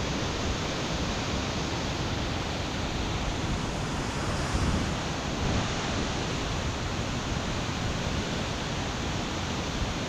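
Steady rush of water pouring over a waterfall, the stream in spate and swollen by heavy rain.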